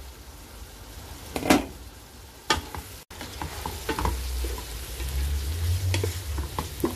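A spatula stirring and scraping partly cooked chopped vegetables in a large non-stick pot on the stove, with light sizzling. Two sharp knocks come against the pot in the first half, and the stirring grows busier and louder from about halfway.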